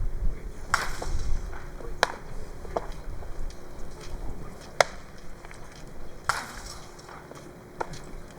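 About five sharp knocks spread unevenly over several seconds, the loudest and sharpest about halfway through: baseball impacts from the practice field, a ball meeting a glove or a bat.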